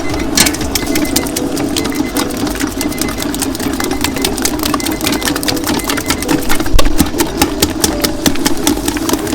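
Electric dough mixer running, its motor humming steadily with frequent irregular clicks and knocks as it works bread dough.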